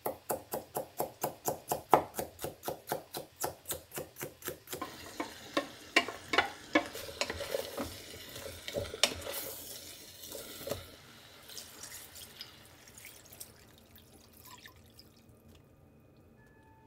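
Kitchen knife chopping peeled daikon radish on a wooden cutting board, quick even strokes about four or five a second for the first five seconds. Then irregular clatter and rustle as the cut vegetables and pork are mixed by hand in a stainless steel pot, dying away to quiet near the end.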